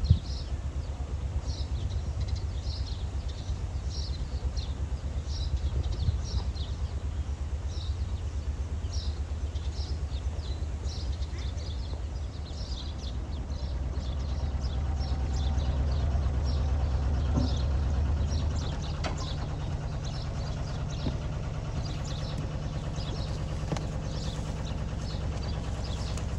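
A narrowboat's diesel engine running at low revs with a steady throb. It grows louder as the boat draws close, and its note changes about 18 seconds in. A sharp knock comes right at the start, and a small bird chirps repeatedly in the background.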